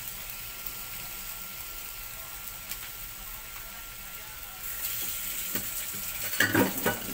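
Fern shoots with belacan paste sizzling on a hot griddle plate lined with banana leaf, the burner already off: a steady soft hiss that swells about five seconds in, with a few brief louder sounds near the end.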